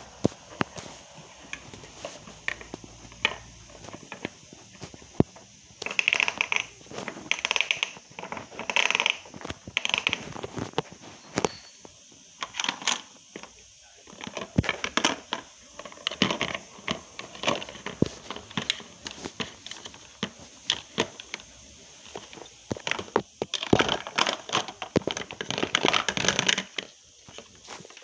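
Plastic toy pots and pans knocking and clattering on a plastic toy kitchen stove, many sharp clicks and knocks, with noisier bursts of handling in two stretches.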